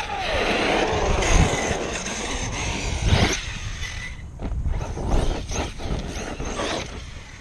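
ARRMA Kraton V4 RC monster truck running off across pavement, its electric motor and tyres going, with a louder burst about three seconds in. It goes quieter after about four seconds, leaving scattered short ticks.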